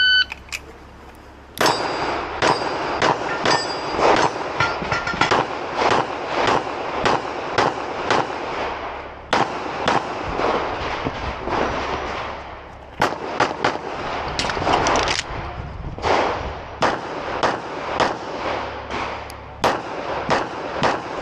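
Electronic shot-timer beep starting the stage, followed about a second and a half later by a long string of rapid pistol shots, a few per second with brief pauses between strings. Some shots are followed by a metallic ringing, typical of steel targets being hit.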